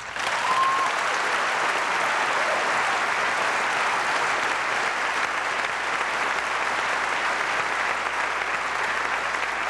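Large audience applauding steadily, with one brief high tone about half a second in.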